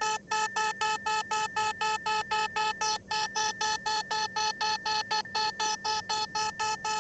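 Emergency Alert System–style alarm: a harsh, buzzy electronic tone pulsing rapidly, about four to five beeps a second, with a couple of very brief breaks in the pattern.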